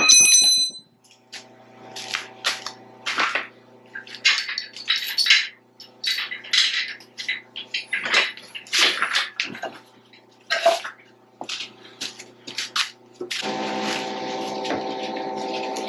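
Heavy metal clanks, knocks and scrapes as a roller's compactor drum is worked loose, opening with one sharp ringing clang. A faint steady machine hum runs underneath and turns into a louder steady running noise about 13 seconds in.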